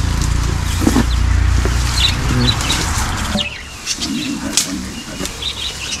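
Leafy branches rustling and swishing as they are cut and pulled about. About halfway through the rustling drops off sharply, leaving lighter rustling and small birds chirping.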